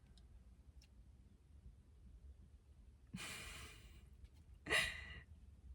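A woman's breathing: a long breath in about three seconds in, then a short, louder sigh out a second later.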